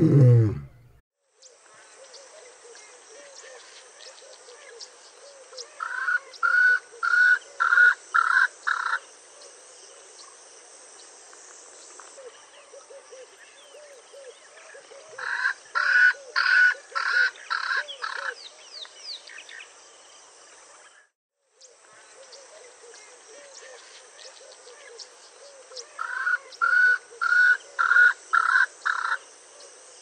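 Swainson's spurfowl calling its territorial call: three bouts of about six loud notes at roughly two a second, each bout lasting about three seconds, about ten seconds apart.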